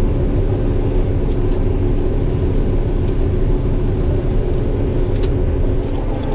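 Combine harvester running steadily while harvesting corn: a constant low drone with steady tones in it, and a few faint ticks.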